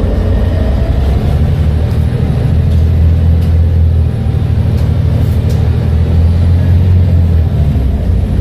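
Volvo B7TL bus's six-cylinder diesel engine running under way through its Voith automatic gearbox, a steady low drone whose note shifts a few times. A faint high whine rises and falls above it.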